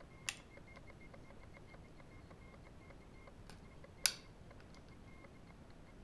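Sharp metallic clicks of a Victorinox Hercules Swiss Army knife's tools snapping into place as they are unfolded: one click, a fainter tick about three seconds later, then a louder click.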